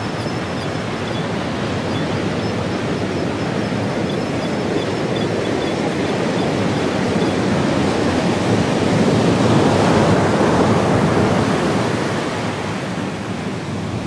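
Ocean surf breaking and washing up the beach, a steady rushing that swells loudest about two-thirds of the way through, with wind on the microphone.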